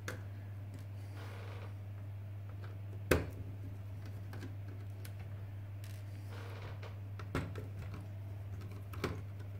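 Small sharp clicks and taps of a precision screwdriver working tiny screws out of a laptop motherboard, about four of them, the sharpest a little past three seconds in, with a couple of brief soft scrapes between them. A steady low hum lies underneath.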